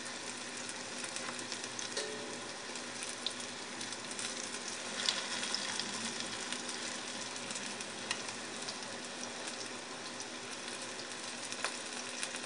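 Panko-breaded pejerrey fillets sizzling steadily as they shallow-fry in hot oil in a steel disco pan, with a few sharp clicks and pops.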